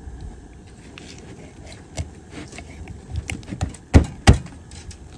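Knife chopping a stewing hen in half: a few light knocks, then two hard chops about a third of a second apart near the end.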